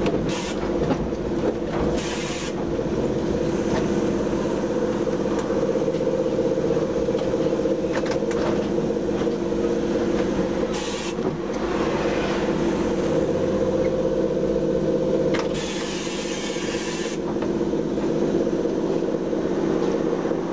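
Sóller electric tram in motion, heard from the driver's cab: a steady motor and gear hum with rail noise. Three short hisses break in, the longest, about a second and a half, coming some three quarters of the way through.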